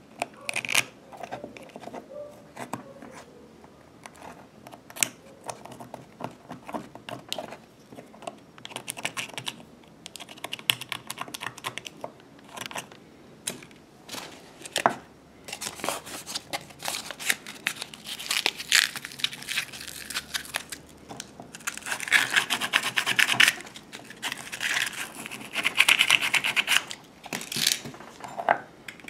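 Small hand file and scraper rasping at the end of a short white PVC pipe section, in quick irregular strokes that come close together in the second half.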